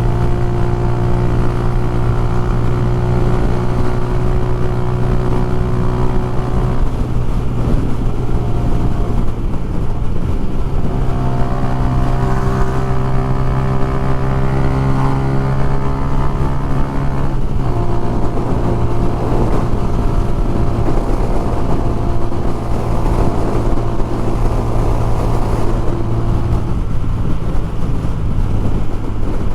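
Motorcycle engine running at a steady cruise, its note wavering about a third of the way in and dropping a step a little over halfway through, with wind rushing over the microphone.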